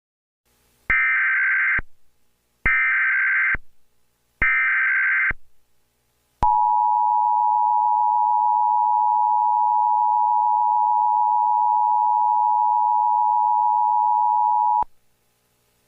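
Emergency Alert System tones: three short bursts of the warbling SAME digital header, each under a second and about two seconds apart, then the two-tone EAS attention signal held steady for about eight seconds before cutting off. The sequence announces that an emergency alert message follows.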